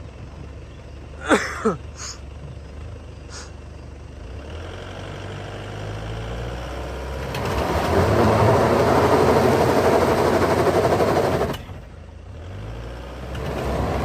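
Mitsubishi Pajero's diesel engine idling, then building up and running hard under load for about four seconds on a steep climb with the rear differential locked, before dropping off suddenly back to idle. A short, loud, falling squeal sounds about a second in.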